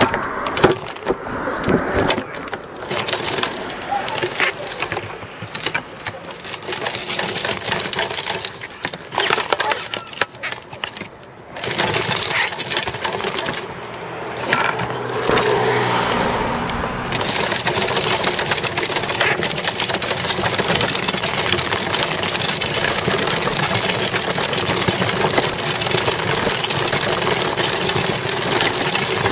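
Child's bicycle being ridden on pavement, heard from a camera mounted on the bike: irregular rattling and knocks at first, then, a little past halfway, a steady rushing noise of wind and tyres that holds to the end.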